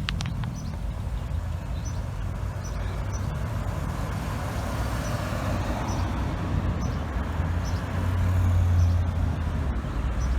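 A motor vehicle's engine running steadily with a low rumble, growing a little louder about eight seconds in.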